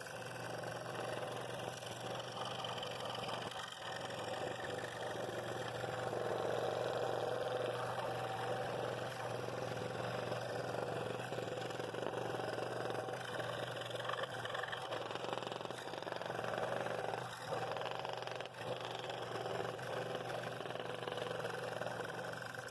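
Scroll saw running with a number 7 blade, cutting a ring out of a laminated wooden bowl blank: a steady motor hum under the buzz of the reciprocating blade through the wood.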